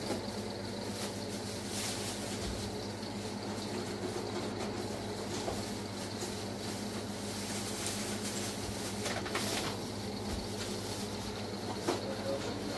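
Steady low electrical hum, with faint rustling and a couple of light knocks.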